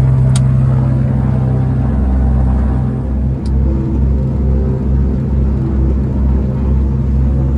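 Aerostar 601B's six-cylinder Lycoming piston engine running with its propeller turning, heard from inside the cabin. A steady low throb that, from about two seconds in, starts to pulse regularly, a little faster than once a second.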